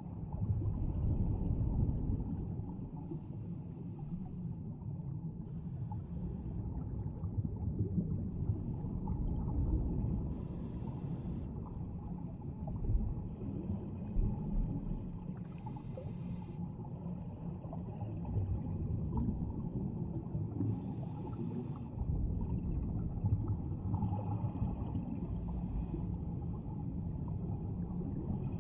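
Scuba divers breathing through their regulators underwater: a deep, steady rumble with a hiss of air or bubbles about every three to six seconds.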